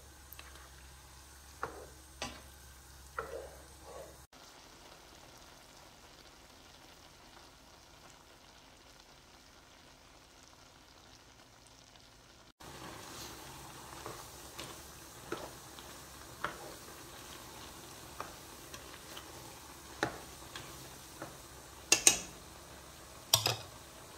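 Tongs clicking and scraping against a nonstick pan as fettuccine is tossed in a cream sauce, over a low sizzle of the sauce cooking. The sound drops to a faint hiss for several seconds in the middle, and two loud clatters come near the end.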